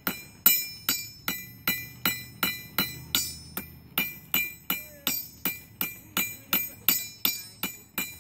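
Blacksmith's hammer striking hot metal on an anvil to draw it out, in a steady rhythm of about three blows a second, each with a bright metallic ring.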